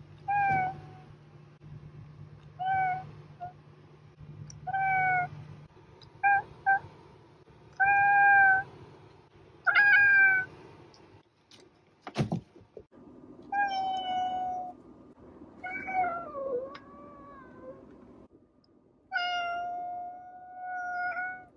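Domestic cats meowing. A white cat with grey-brown patches gives about eight short meows, roughly one every two seconds. After a sharp click about halfway, a black cat gives longer drawn-out meows: one falls in pitch, and the last is held steady for about two seconds.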